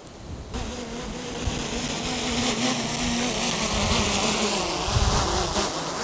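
DJI Mini 3 Pro propellers buzzing at a steady pitch as the drone comes back in to land, over a loud rushing hiss of strong wind; the buzz starts about half a second in.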